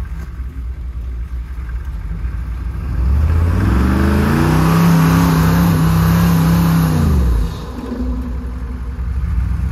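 Chevrolet K5 Blazer stuck in deep snow: the engine runs, is revved hard about three seconds in, holds high while the tyres churn snow, and drops back about two seconds before the end. Bystanders suspect the driver has left the brake on.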